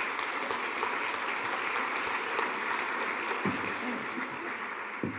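Audience applauding: many hands clapping in a steady patter that dies away near the end.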